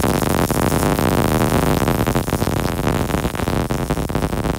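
MIG welder arc running a short bead on a steel truck frame: a loud, steady, dense crackle that cuts off abruptly at the very end as the trigger is released.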